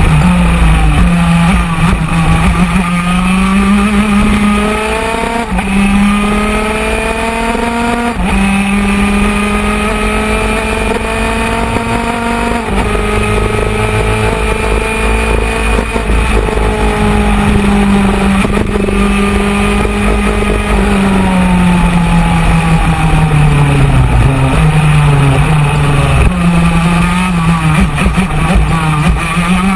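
125cc superkart's single-cylinder two-stroke engine at racing speed, its pitch climbing through the gears with a sudden drop at each upshift, about three times in the first half. Later the pitch falls as the kart slows for a corner, then climbs again near the end.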